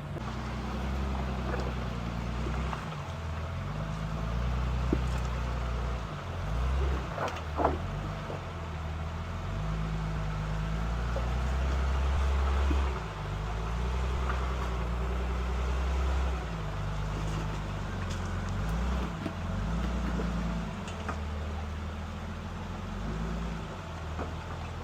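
1973 Chevrolet K20 pickup's engine working at low revs, its pitch rising and falling as the truck crawls over loose, wet rock. A few sharp knocks stand out about five and seven and a half seconds in.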